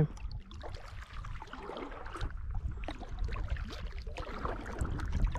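Canoe being paddled on calm water: faint paddle splashes and drips, over a steady low rumble.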